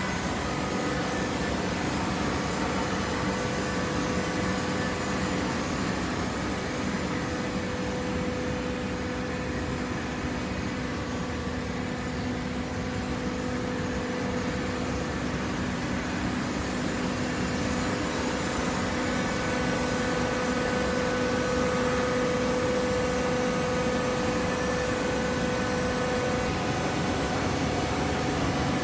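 Hydraulic cardboard baler's electric motor and hydraulic pump running steadily, a continuous machine hum with a few steady tones, one of which grows stronger about two-thirds of the way through.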